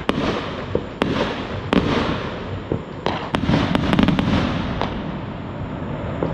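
Aerial fireworks going off in quick succession: sharp bangs, each trailed by a rolling echo, with a fast cluster of bangs about three to four seconds in.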